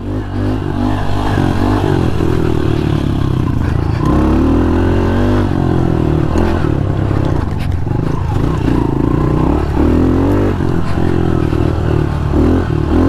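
Honda CRF110 pit bike's small single-cylinder four-stroke engine being ridden hard, its revs rising and falling constantly with the throttle.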